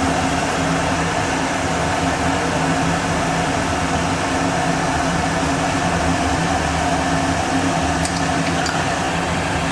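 Steady hum of an electric fan motor, an unchanging drone, with a few light clicks near the end.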